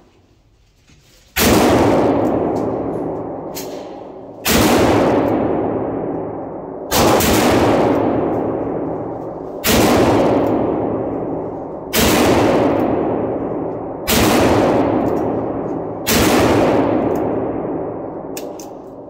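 Seven handgun shots fired one at a time, about two to three seconds apart, each with a long echo trailing away.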